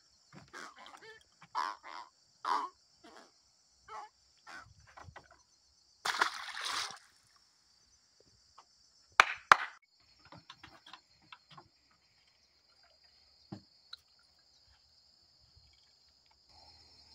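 Steady high-pitched insect chorus with short knocks and clicks of handling, and a brief splash of water about six seconds in as a caught fish goes back into the river; two sharp clicks follow about three seconds later.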